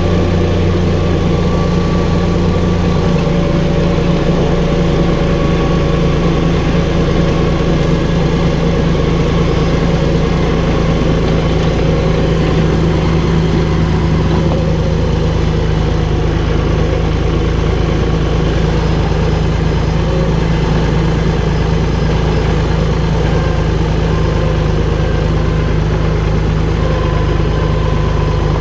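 Valtra BF-75 tractor's diesel engine running steadily at an even speed.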